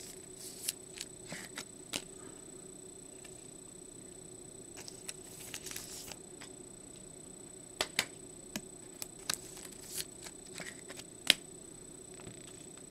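Trading cards and rigid clear plastic card holders being handled on a tabletop: scattered light clicks and taps, a short rustle about halfway through, and one sharper click near the end.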